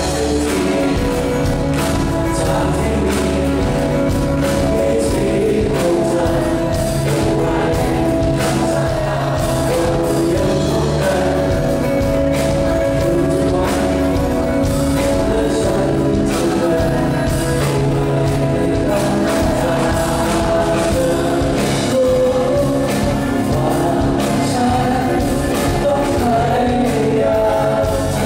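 A live band playing a song: sung vocals over electric and acoustic guitars, recorded from within the audience.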